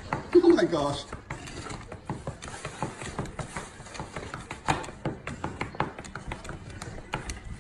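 Foam takeout container being handled and opened, creaking in an irregular run of small clicks and crackles. A dog gives one short whine that falls in pitch in the first second.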